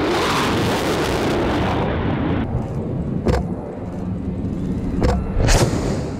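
Blue Angels F/A-18 twin-engine fighter jet roaring past very low, the loud roar starting at once and lasting about two and a half seconds. After it comes a lower rumble broken by three sharp cracks.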